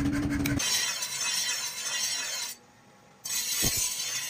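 Steel cleaver blank being ground against a bench grinding wheel: a steady hiss, broken by a short silence just before the middle.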